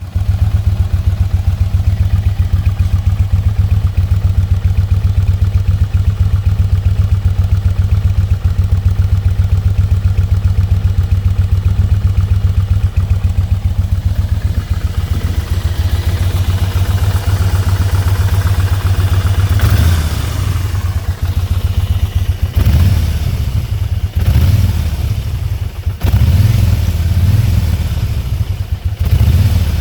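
Kawasaki Vulcan Nomad VN1600D's V-twin engine running through its stock exhaust. It idles steadily with an even pulse for about half the time, then is revved up several times in a row near the end.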